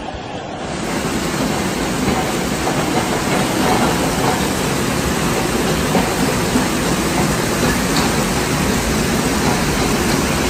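Torrential rain and rushing floodwater: a loud, steady rushing noise that grows louder over the first couple of seconds.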